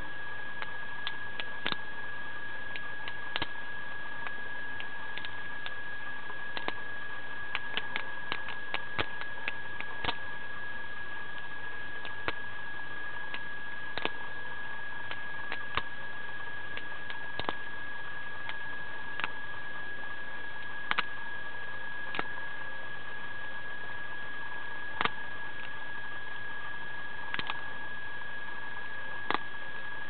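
Benchmade Morpho balisong being flipped: the handles click and clack at irregular times, sometimes several in quick succession. Under them runs a constant high whine and hiss.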